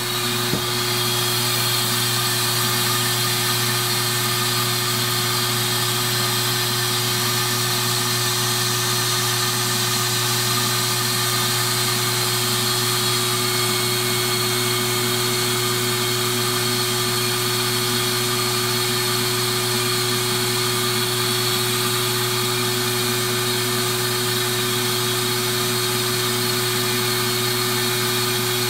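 Vacuum motor of a Seed EZ vacuum seeder running steadily: an even whooshing hum with a constant tone in it, with no change in speed.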